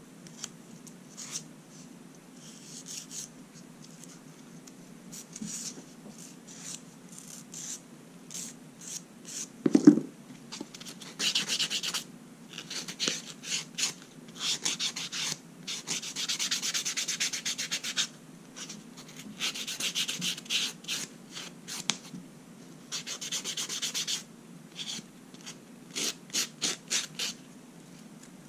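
Nail file rasping across a fingernail in quick runs of short strokes, with a single louder thump about ten seconds in. A steady low hum runs underneath.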